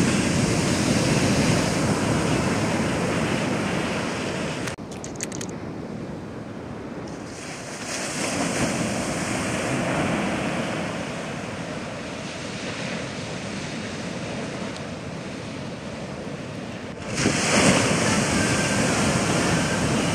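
Heavy shorebreak surf: waves breaking and whitewater washing in as a continuous rushing noise. The noise drops abruptly about five seconds in and swells sharply again about three seconds before the end.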